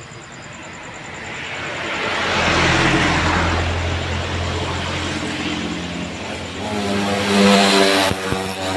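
Road traffic passing: a vehicle goes by with a swell of engine and tyre noise about a third of the way in, then another vehicle's engine grows louder and peaks near the end.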